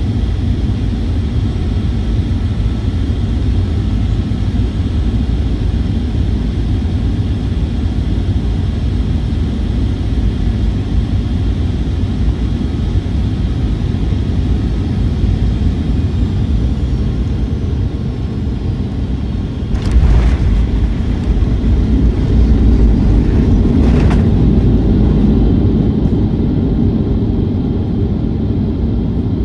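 Boeing 737-800 cabin noise heard from the front row: a steady rumble and hiss of airflow and engines. About twenty seconds in, a sudden thump comes and the low rumble grows heavier; a second sharp knock follows about four seconds later.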